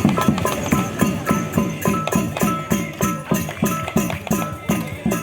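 Music with a steady beat, about three beats a second, with a ringing melody over it.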